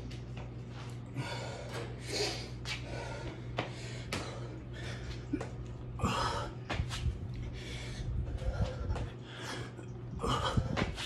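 A man breathing hard and gasping during burpees with push-ups, with short thuds of hands and feet landing on the mat. A steady low hum runs underneath.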